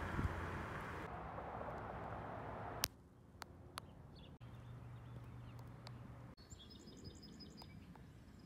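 Outdoor background noise that changes abruptly several times: a steady rushing hiss for the first few seconds, then quieter ambience with a low steady hum. Small birds chirp rapidly near the end.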